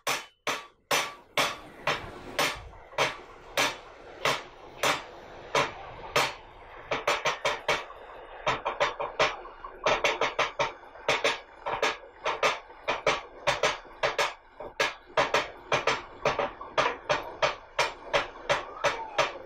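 Small bell-metal gong (chengila, as used in Kathakali music) struck in a rhythm, each stroke ringing briefly. At first it comes about once or twice a second; from about seven seconds in it turns to quick clusters of strokes.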